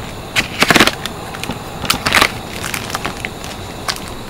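Knife cutting through the plastic film on a food tray and the plastic packaging crinkling as it is opened, in a few short crackly bursts, the loudest about a second in.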